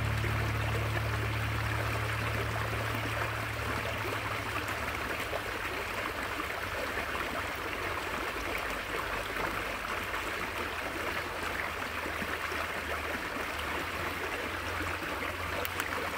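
Small rocky creek running steadily, its water tumbling and splashing over a little cascade of stones.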